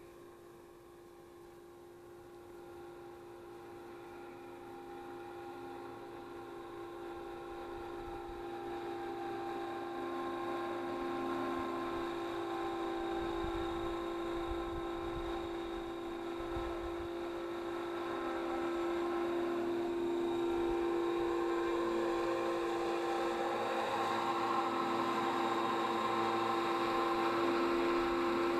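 Align T-Rex 500E electric RC helicopter flying: a steady whine from its motor and rotor that grows louder as it comes in close.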